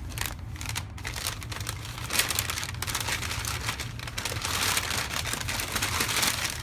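Newspaper wrapping crinkling and tearing as it is pulled off a toy, a dense crackle that gets busier from about two seconds in.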